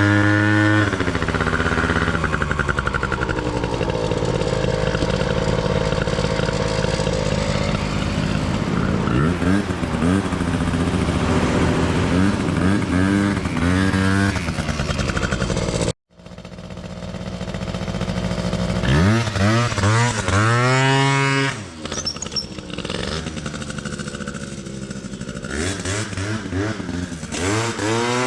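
Loud 50cc two-stroke scooter engine with an unrestricted expansion pipe, revving up and dropping back again and again as it accelerates and backs off; the sound cuts out sharply for an instant a little past halfway.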